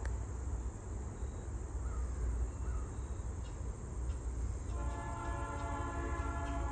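Approaching diesel freight train's locomotive horn sounding a long, steady multi-note chord, starting about five seconds in, over a low rumble.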